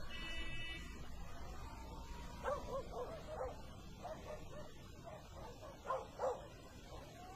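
A dog's short, high yelps: a quick run of them about two and a half seconds in, then two louder ones about six seconds in.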